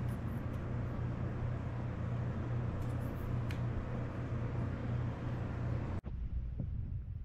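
A steady low hum with a hiss of noise over it, broken by a sudden dropout about six seconds in.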